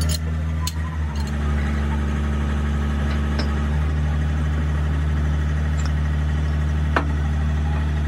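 An engine running steadily with a low, even hum. A few sharp metal clinks come in the first second, and one more about seven seconds in.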